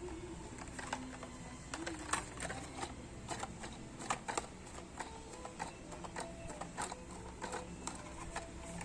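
Irregular small clicks and crackles of a blister-packed Hot Wheels car being handled, over a faint low hum of room tone.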